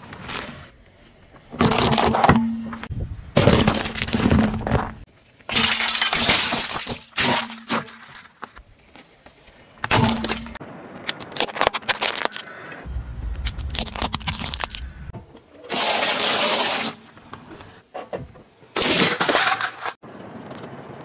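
A car tyre rolling over and crushing objects on asphalt: a series of separate cracking and crunching bursts, about eight in all, each lasting up to a couple of seconds with quieter gaps between. About two thirds of the way through there is a low rumble.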